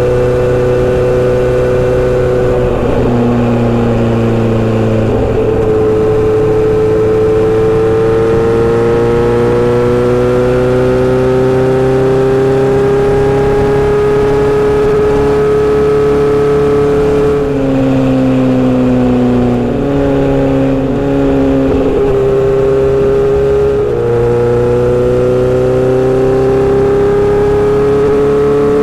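Inline-four motorcycle engine and exhaust under way. The engine note climbs slowly and drops back several times, around gear changes or throttle changes.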